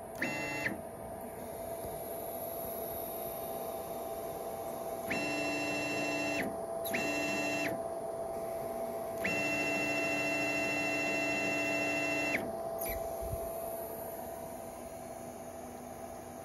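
Unloaded NEMA 23 stepper motors, driven by a G540 stepper controller, whining at a steady pitch while they are jogged: a brief burst at the start, then runs of about a second and a half, under a second, and three seconds, each starting and stopping cleanly. A faint steady hum runs underneath.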